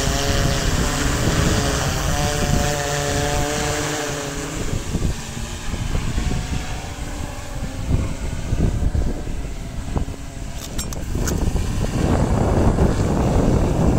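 Large DJI Matrice quadcopter in flight, its propellers giving a steady hum with several pitches, clearest in the first few seconds and then fading. Gusty wind rumbles on the microphone throughout and grows louder near the end.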